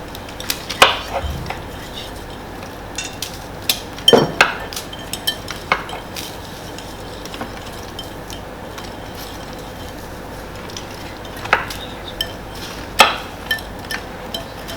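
A whisk stirring crème fraîche in a bowl, with scattered, irregular clinks and knocks of the utensil against the bowl.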